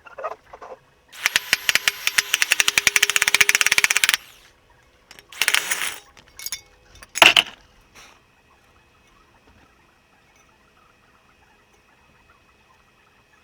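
Impact wrench hammering rapidly for about three seconds, working the press tool that forces the broken wheel bearing out of the steering knuckle. A shorter burst follows, then a single loud knock.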